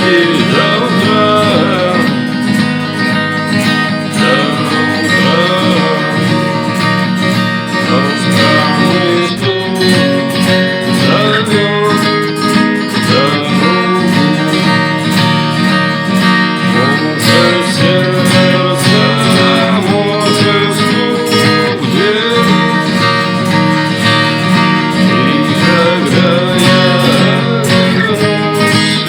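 Instrumental stretch of a rough demo song recording: strummed acoustic guitar with a melody line gliding over the chords, no sung words.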